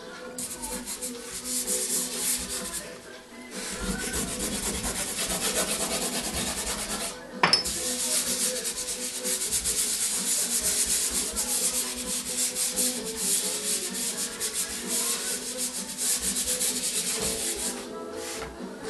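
Fingers and the flat of a hand rubbing dry pastel into paper, blending it in a dense, scratchy run of quick strokes. There is one sharp tap about seven seconds in.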